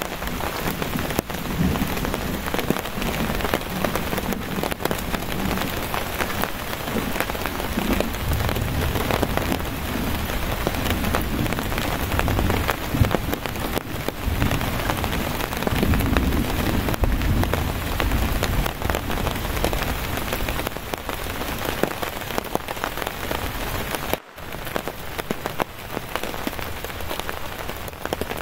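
Steady heavy rain pattering on a tarp shelter, with low rumbles of distant thunder swelling about a third of the way in and again just past the middle.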